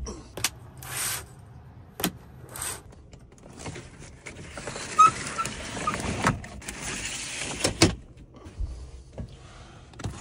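Pleated cab window blinds being slid shut along their rails: a sliding, rustling noise broken by several sharp clicks as the blinds catch.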